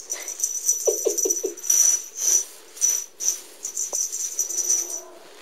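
Cat playing with a feather duster, making a quick run of four short chirping calls about a second in, over the intermittent rustle of the feathers being swished.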